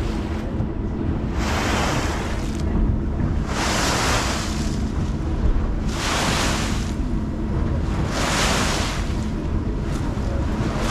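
Water surging and splashing against a passenger ferry's hull in regular rushes about every two seconds, five in all, each about a second long. Underneath is a steady low rumble of wind on the microphone with a faint steady hum.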